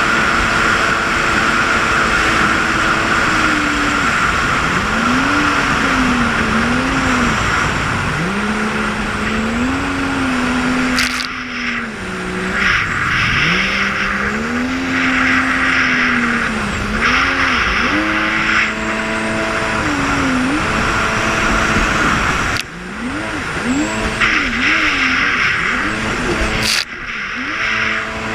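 Jet ski engine running, its pitch repeatedly rising and falling as the throttle is worked, over a steady rushing noise, with a few abrupt breaks.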